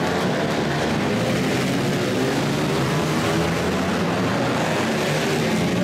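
Several dirt-track racing motorcycles running together on an indoor flat track, their engine notes rising and falling as the riders work the throttles, echoing in a large hall.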